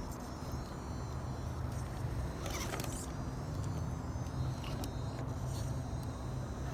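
Axial SCX10 Deadbolt RC crawler's electric motor and geared drivetrain running steadily at low speed as it crawls slowly over rock, with a couple of brief clicks.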